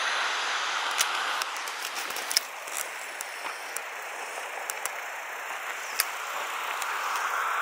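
Steady rush of sea and wind noise with scattered sharp clicks and knocks from the camera being handled and swung about. The rush drops a little after about a second and a half and swells again near the end.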